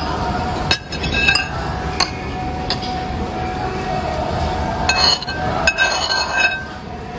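Metal cutlery clinking against ceramic plates and bowls: about half a dozen sharp clinks with a brief ring, scattered through, over steady background noise.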